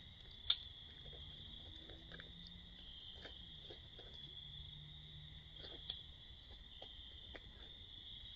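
Raccoons growling low for a few seconds while tussling, over a steady chorus of crickets. A sharp click about half a second in, and a smaller one near six seconds.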